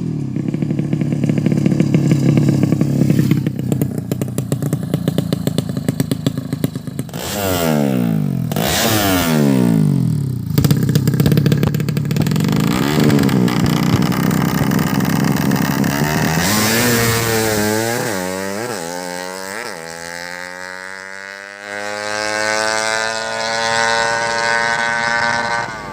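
Tuned 130cc drag-racing motorcycle engine running with a raspy note and being revved in quick throttle blips. Then it pulls hard, its pitch climbing and dropping sharply several times as it shifts up through the gears, and it ends on one long rising pull.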